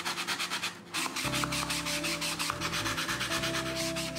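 Hand file scraping back and forth along the inside edge of a slot in green moisture-resistant MDF (HMR board), a fast, even run of rasping strokes with a short break about a second in.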